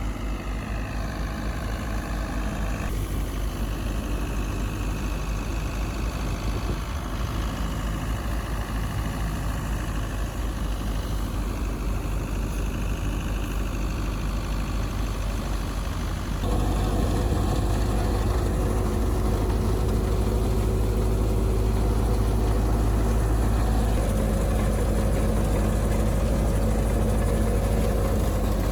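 Heavy engine of farm machinery running steadily with a fast, even beat. It gets louder about sixteen seconds in, where a steady hum comes in over it.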